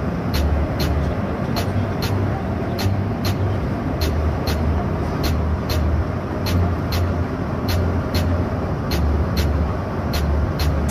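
Bus cruising on the highway, heard from inside the cab: a steady engine and road rumble, with a faint high ticking about twice a second.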